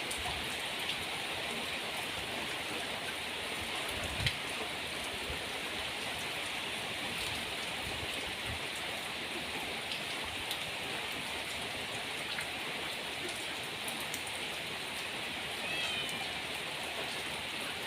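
Steady rain pouring down in a storm, with a single knock about four seconds in.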